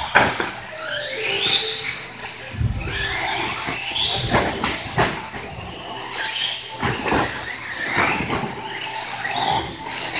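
1/10-scale electric RC short-course trucks (TLR SCTE) racing: motor and drivetrain whine rising and falling in pitch as they accelerate and slow, over tyre noise, with several sharp clicks and knocks.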